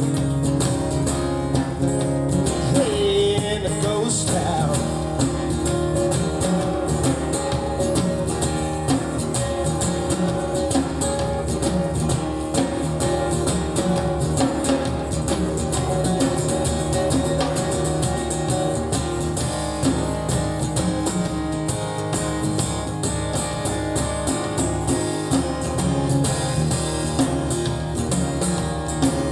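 A recorded song playing: a guitar-led passage between sung lines, running on steadily.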